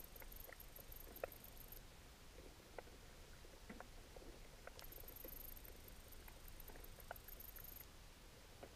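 Near-silent underwater ambience: faint scattered small clicks and crackles. Two spells of rapid, evenly spaced high-pitched ticking come through, one over about the first two seconds and one from about five to eight seconds in.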